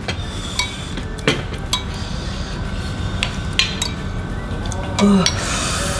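Spoons tapping and scraping against ceramic soup bowls in scattered clinks, with a brief vocal sound about five seconds in.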